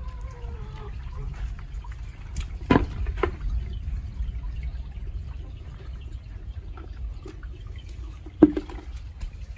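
Water running through a narrow brick-walled drainage channel, a steady low rush, with two sharp knocks, about three seconds in and near the end.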